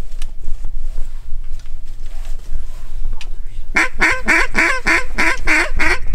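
A quick run of about eight loud mallard quacks, starting nearly four seconds in, over a low rumble of wind on the microphone.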